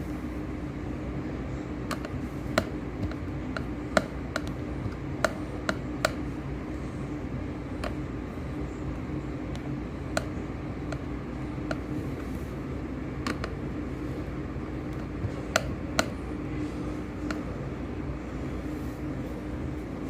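Irregular sharp clicks and taps of a screwdriver and plastic laptop case being worked on, over a steady low hum.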